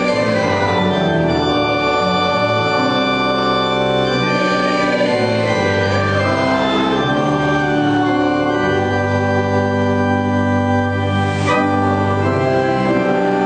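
Organ playing slow, sustained chords that change every second or two.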